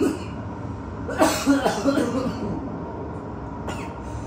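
A short, cough-like burst of voice about a second in, over a steady low rumble.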